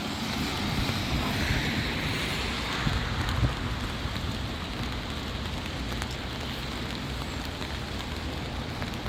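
Steady rain falling, with the hiss of car tyres on the wet road fading over the first couple of seconds.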